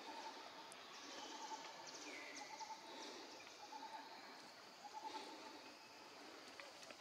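Faint forest ambience: a high insect hiss with short repeated calls and a falling whistle about two seconds in, typical of insects and birds in undergrowth.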